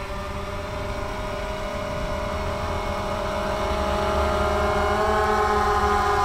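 Quadcopter drone's propellers humming steadily, a pitched whine with several overtones that grows louder and edges up in pitch as the drone comes down close.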